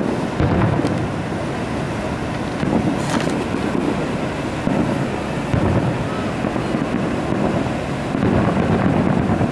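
Wind buffeting the camcorder's microphone in a steady rumble, with low swells every few seconds that carry the dull booms of distant fireworks bursts.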